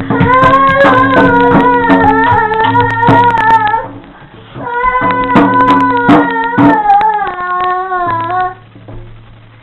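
A high voice singing a children's tune in two phrases with a short break between them, over quick taps of a stick on a toy drum. It goes quiet near the end.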